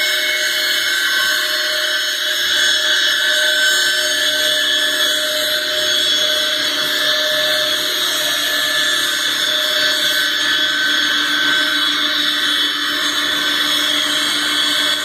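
Heavy-duty CNC lathe turning a steel railway wheel on its axle, the cutting insert machining the wheel's tread and flange. The cut and the machine make a steady high-pitched whine with several held tones over a hiss.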